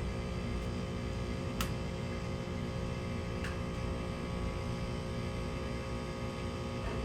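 Outdoor air-conditioning condenser unit running: a steady hum with several steady tones under a rushing fan noise. Two faint clicks in the first few seconds.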